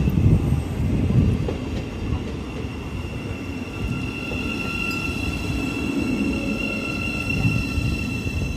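Great Northern Class 717 electric multiple unit moving slowly through the platform, a steady whine from its traction equipment over the rumble of its wheels on the rails.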